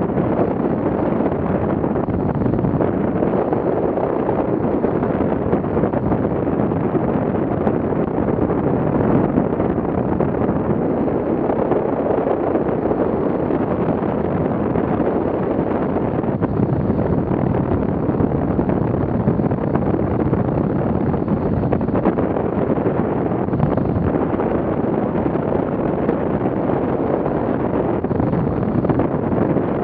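Steady wind rushing over the microphone of a camera mounted on a flying hang glider, an even noise with no breaks or changes.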